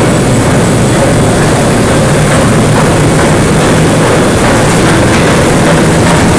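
Overhead bridge crane travelling with a steel plate hung from plate clamps: loud, steady mechanical running of its drive and wheels, with no distinct knocks.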